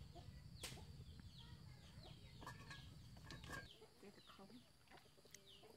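Faint chickens clucking, with many short high chirps falling in pitch and a few light clicks. A low hum underneath stops almost four seconds in.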